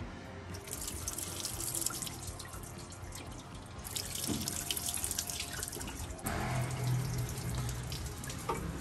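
Coolant water forced out of a Toyota FJ45's cooling system by blowing through the disconnected upper radiator hose, gushing and splashing onto the floor in two spells, the first starting about half a second in and the second about four seconds in.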